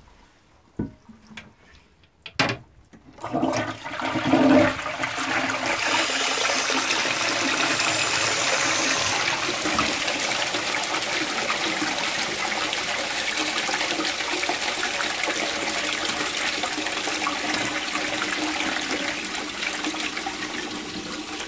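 A few light clicks, then about three seconds in a 1970s Armitage Shanks Magnia low-level toilet flushes: a loud gush of water into the pan, settling into a steady rush of swirling water. The owner calls it a much better flush, though still not perfect.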